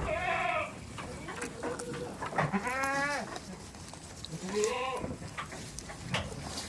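Goats bleating: three separate calls a second or two apart, with light knocks and rustling between them.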